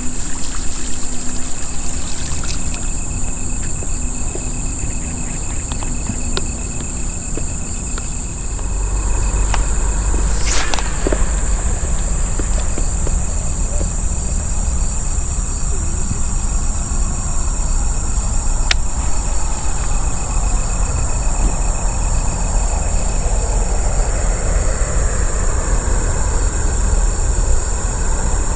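Insects trilling steadily at a high pitch over a low rumble that grows stronger about a third of the way in, with a few sharp clicks.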